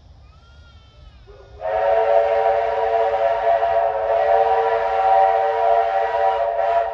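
Steam locomotive whistle blown in one long blast of about five seconds, sounding a chord of several notes over a hiss of steam. It starts about a second and a half in and cuts off near the end, leaving a short fading echo.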